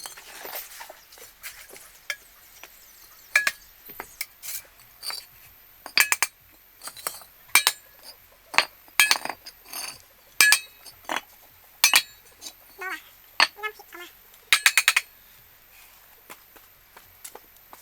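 Sharp clinks of hard objects striking, at irregular intervals, each ringing briefly; some come in quick doubles or triples, as near the end.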